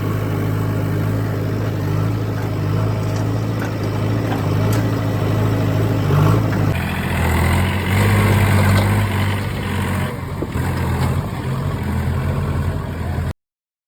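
Heavy diesel engine of construction machinery running steadily at a low, even idle. The sound shifts about seven seconds in, then cuts off suddenly near the end.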